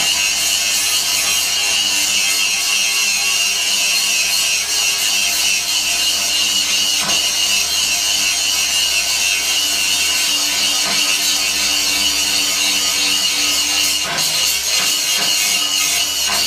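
Angle grinder with a sanding disc running continuously against rusted quarter-inch steel plate, grinding off the rust with a steady high-pitched whine.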